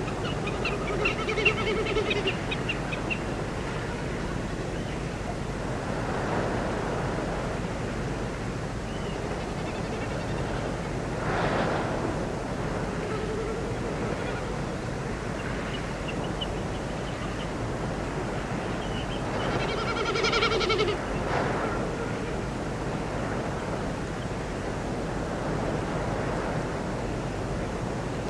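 Spring morning nature ambience: a steady rushing background with bird calls, two louder calls standing out, one about a second in and one about two-thirds of the way through.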